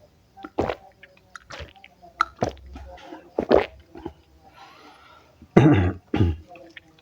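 Close-miked mukbang eating sounds: a man taking mouthfuls of spicy stir-fried white cabbage, making a string of short, sharp, breathy mouth and throat noises. The loudest come about five and a half to six seconds in.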